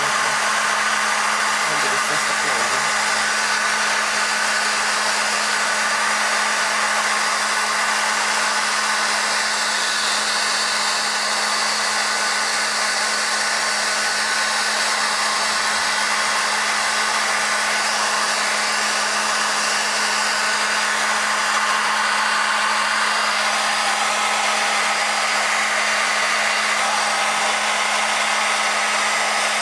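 Blow dryer running steadily while drying a dog's fur: a constant rush of air with a steady motor hum underneath.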